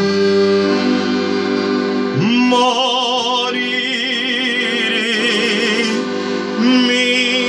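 A man singing a Calabrian folk song over steady piano-accordion chords: about two seconds in he slides up into a long held note with wide vibrato, and near the end slides up into another.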